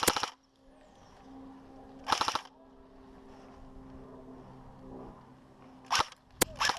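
Airsoft gun fire: a short rapid-fire burst at the start and another about two seconds in, then near the end a burst followed by two sharp single shots. A faint steady low hum runs underneath.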